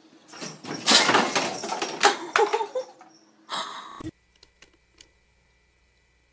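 A cat jumping down from the top of a wooden cabinet, with a loud clatter of knocks and bangs lasting about three seconds. A shorter burst of noise follows and cuts off suddenly.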